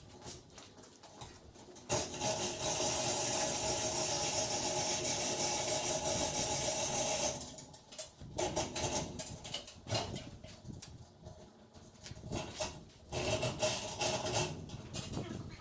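A power tool runs steadily for about five seconds, starting about two seconds in and cutting off abruptly, amid irregular metallic clanks and knocks of lift parts and tools being handled.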